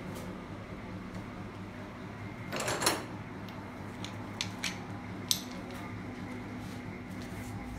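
Metal hand tools being handled: a short scraping rattle about two and a half seconds in, then three sharp clinks, over a steady low hum.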